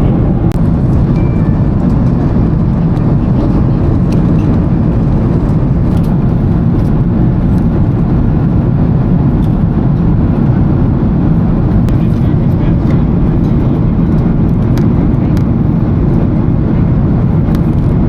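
Steady airliner cabin noise of a Boeing 777-300ER in cruise: a constant low, even rush of airflow and engine sound, with a few faint light clicks over it.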